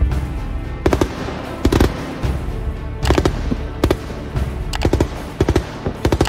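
ZU-23-2 twin 23 mm anti-aircraft autocannon firing about seven short bursts of rapid shots, a burst every half second to a second.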